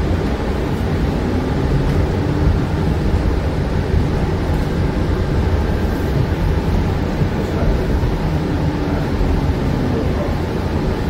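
Interior ride noise of a New Flyer XE40 battery-electric bus under way: a steady low rumble of road and running gear with no engine note, and a faint whine that rises and falls a couple of times.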